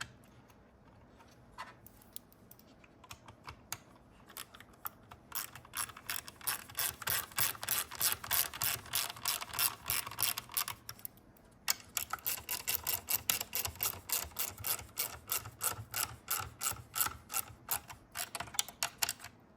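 Hand ratchet with a small 5.5 mm socket clicking rapidly as it drives in the two small screws holding the headlight switch. The clicks come in two long, steady runs, one per screw, with a short pause between them.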